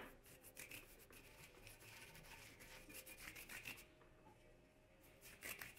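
Faint rubbing of a bristle brush spreading wax-oil finish onto wooden boards, a run of short quick strokes, a lull about four seconds in, then more strokes near the end.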